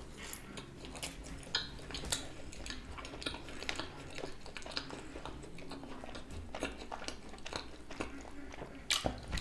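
A person chewing a mouthful of pepperoni-stuffed garlic bread: soft, wet mouth sounds with small irregular clicks, a little louder near the end.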